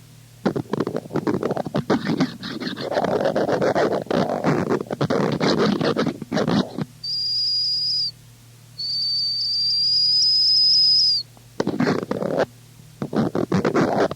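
Harsh noise music: dense, stuttering bursts of crackling distorted noise that cut in and out, then a piercing high steady tone over a low hum, sounding twice, the second time longer and rising slightly, before the choppy noise bursts return near the end.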